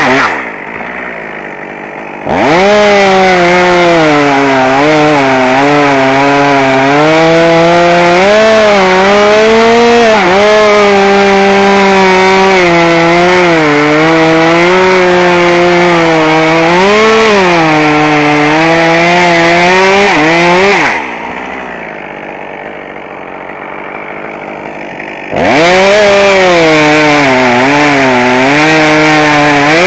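Chainsaw at full throttle cutting wood, its engine pitch dipping and recovering as the chain takes load. Twice it falls back to a quieter idle for a few seconds, just after the start and again about two-thirds of the way through, then revs up and cuts again.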